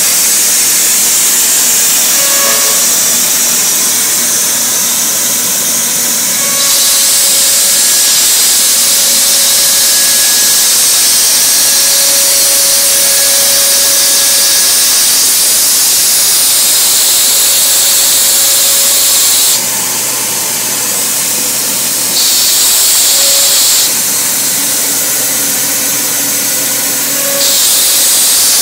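KOMO CNC router spindle cutting a board: a loud, steady high hiss with a faint whine underneath. The hiss steps up and down in level several times as the cut changes, dipping for a few seconds about two-thirds of the way through.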